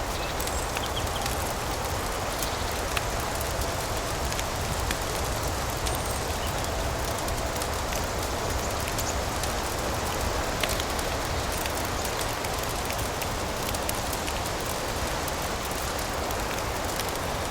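Layered ambience of steady rain and a crackling fireplace: an even hiss with small crackles and pops scattered throughout.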